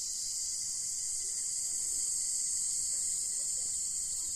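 Steady, high-pitched chorus of insects, unbroken and even.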